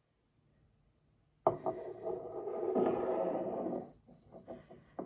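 Glassware set down on a wooden table with a sharp knock, then dragged across the wood for about two seconds, followed by a few light clicks.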